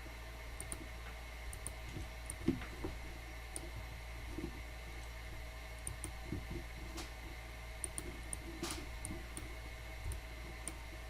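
Faint, scattered small clicks and light knocks over a steady low hum.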